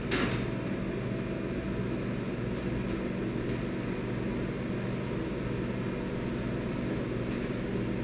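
Built-in GE microwave running a cook cycle with its cover off: a steady hum from the cooling fan and the energized high-voltage transformer, with a few faint clicks of handling. The transformer is receiving line voltage, yet the oven does not heat, which points to a fault further along in the magnetron circuit.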